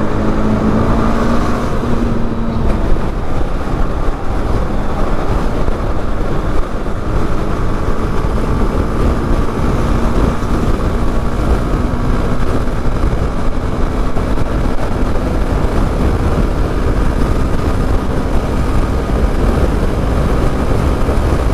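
Honda Twister single-cylinder motorcycle engine running steadily while riding, under a dense low rumble of road and wind noise.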